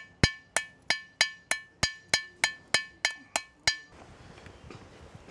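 Ball-pein hammer striking red-hot car-spring steel in a swage block hollow, dishing out the bowl shape: a steady run of about a dozen ringing metallic blows, about three a second, stopping about four seconds in.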